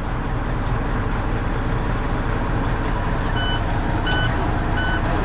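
Semi-truck diesel engine running steadily, with a repeating electronic warning beep starting about three seconds in, roughly one beep every three-quarters of a second.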